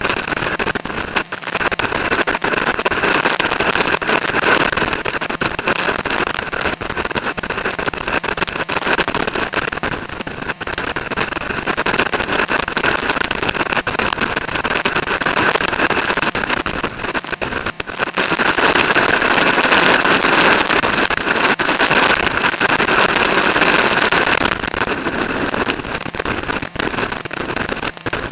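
Suzuki GSX-R sport motorcycle running on the move, its engine blended with a steady rush of wind noise. It gets louder for several seconds from about 18 seconds in.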